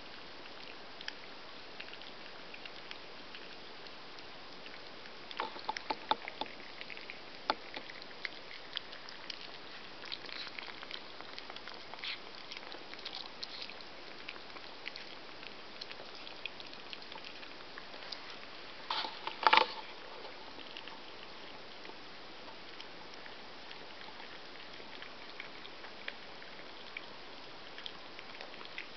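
Three weaning Chihuahua puppies eating moist, mashed food from a plastic bowl: soft wet chewing and lapping with many small irregular clicks, over a steady hiss. About two-thirds of the way through comes a brief louder clatter.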